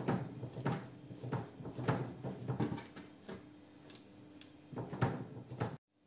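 Hands patting and pressing soft bread dough flat on a floured countertop, with rustling of baking paper: a string of irregular soft pats and taps, cutting off just before the end.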